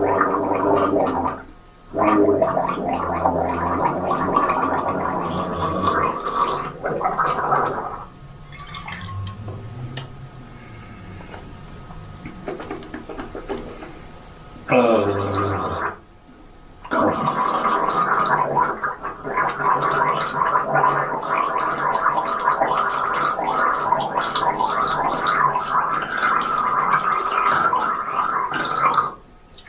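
A person gargling water in the throat: long, bubbling gargles broken by short pauses, with a quieter stretch in the middle.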